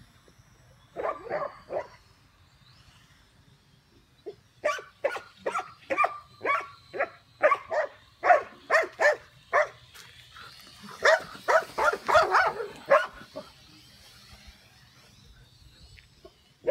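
Dogs barking at a quadcopter drone overhead. A few barks come about a second in, then a run of about two barks a second, then a rapid flurry a little past the middle. A faint high whine from the drone wavers in pitch behind the barks.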